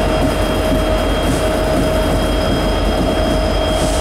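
Norfolk Southern EMD diesel locomotives running as they move past: a steady, loud engine rumble with a steady high-pitched whine over it.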